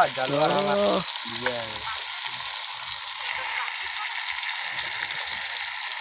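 Meat curry frying in a black wok over a wood fire, with a steady sizzling hiss. A voice speaks briefly in the first two seconds.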